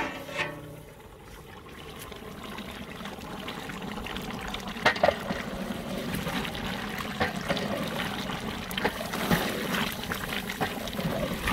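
Goat meat in masala simmering and bubbling in a large aluminium pot as a wooden spoon stirs through it: a wet churning hiss that builds over the first seconds. A few sharp clacks of the spoon against the pot come about five seconds in and again near nine seconds.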